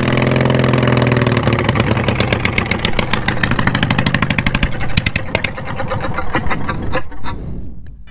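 Twin-cylinder mower engine running roughly through straight exhaust pipes, with a steady drone and many sharp pops, then fading out near the end. The popping is the engine backfiring: it is hard to start and running badly.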